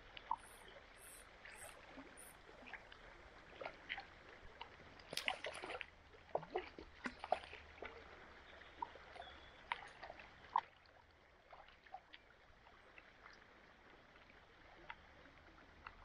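River current flowing, with irregular splashes and sloshes of water as a hooked trout thrashes at the surface and is reached for by hand. The splashes come thickest in the middle and thin out toward the end.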